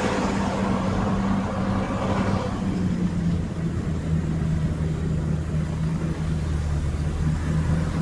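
Heavy earthmoving machine's diesel engine running steadily at a low pitch, with a rougher, louder noise over it that dies away about two and a half seconds in.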